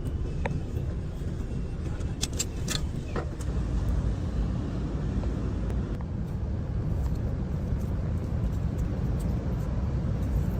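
Steady low rumble of a car engine running, with a few light clicks in the first few seconds.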